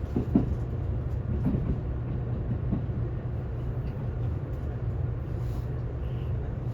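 Cabin noise of a Kintetsu ACE 22000/22600-series limited express train: a steady low rumble, with a few sharp knocks in the first two seconds, like wheels over rail joints.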